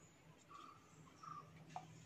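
Near silence, with a faint animal chirp repeating about every three quarters of a second and a single light click near the end.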